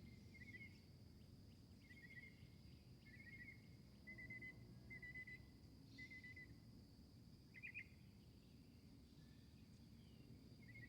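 Faint garden ambience: short trilled chirps repeating about once a second, with a louder double chirp near the end, over a steady high-pitched insect drone and a low rumble.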